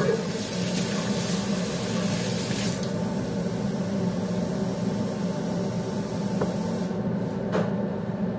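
Steady mechanical hum with a hiss over it that drops away about three seconds in, and a faint tick or two of a knife on a plastic cutting board while kiwi fruit is cut.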